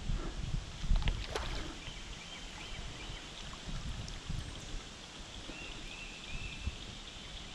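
Hooked smallmouth bass splashing at the surface beside a kayak as it is played in, with water lapping against the hull. A low rumble and a few knocks in the first second and a half, and a few faint high chirps later.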